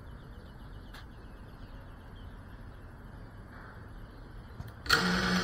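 Faint outdoor ambience with soft bird chirps, then about five seconds in the brushless motors of a GEPRC Cinelog 35 FPV cinewhoop suddenly spin up to a steady hum, the drone armed on the ground just before take-off.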